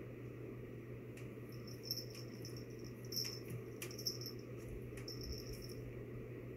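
A cat pawing and batting a small toy mouse across a hard tabletop makes scattered light taps and clicks. The clicks come with short pieces of a high, thin, steady-pitched tone, from about a second in until near the end. A steady low room hum lies under it.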